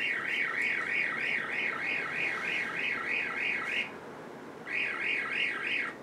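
Electronic warbling scanner sound from a handheld sci-fi scanning gadget in the style of Doctor Who's sonic screwdriver, the pitch wavering up and down about four times a second. It stops a little before four seconds in and starts again about a second later.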